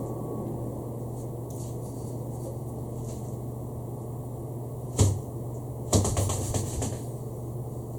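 Steady low background hum, broken by one sharp knock about five seconds in and a second of clicking or rustling soon after.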